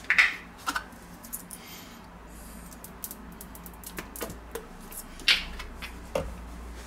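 Clicks and knocks of a plastic squeeze bottle and a non-stick frying pan being handled on a glass cooktop as liquid cooking fat is squeezed into the pan. The sharpest knocks come just after the start and about five seconds in, and a low hum sets in partway through.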